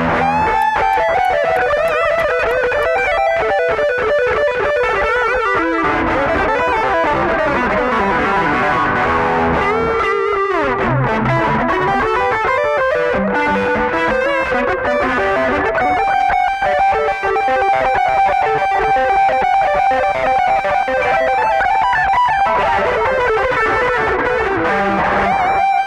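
Electric guitar played through a Boss GT-1000 multi-effects processor: quick lead runs of notes, a long slide down in pitch about ten seconds in, then a long held high note near the middle.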